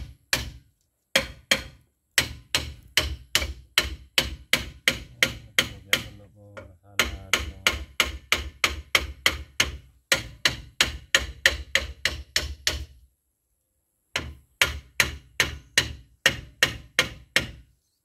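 Hammer blows on the brake drum of a Toyota Land Cruiser BJ60, struck in quick runs of about three or four a second with short pauses, metal ringing at each hit. The brake is jammed, and the drum is being knocked to free it.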